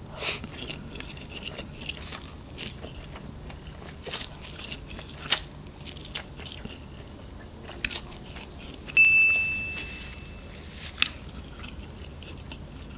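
Close-up mouth sounds of chewing a mouthful of slightly firm, ramen-like instant noodles (Mi Sedaap Korean spicy chicken), with scattered sharp wet smacks and clicks. About nine seconds in, a high steady tone sounds for under two seconds.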